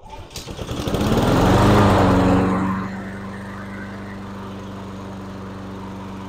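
Honda GCV160 single-cylinder four-stroke lawnmower engine pull-started, catching on the first pull. It revs up loudly, then settles about three seconds in to a steady run.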